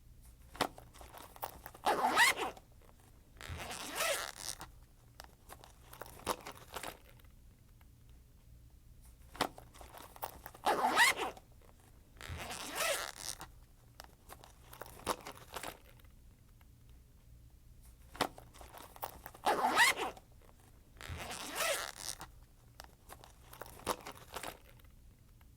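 Backpack zipper being pulled along its teeth in short, quick runs, each lasting about half a second to a second, with small clicks of the pull between them; the same set of pulls repeats three times.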